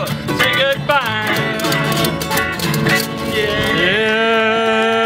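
Live string band of electric and acoustic guitars, mandolin, upright bass and washboard playing the end of a jump-blues number over a steady percussive beat, then settling into a long held final note a little before four seconds in.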